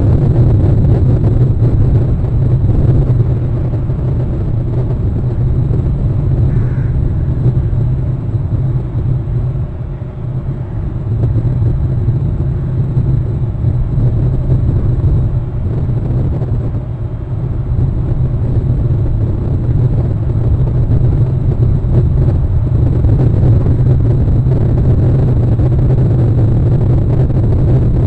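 Steady low rumble of wind buffeting the outdoor nest-cam microphone, easing briefly a few times, with a faint short higher sound about six seconds in.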